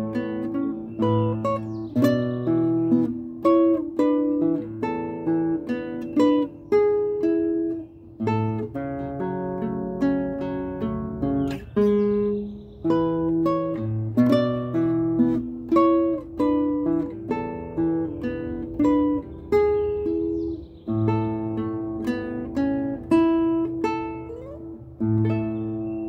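Solo classical nylon-string guitar played fingerstyle: a melody of plucked notes over ringing bass notes, with a final note about a second before the end left to ring.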